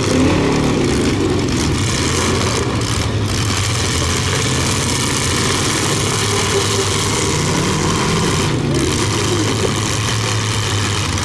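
Several demolition derby cars' engines running together, with revs rising and falling now and then.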